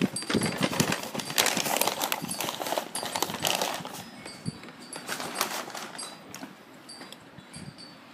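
Rustling and crinkling with quick clicks and taps, as takeout paper packaging and dishes are handled close to the microphone. It is busiest in the first half and tapers off after about four seconds.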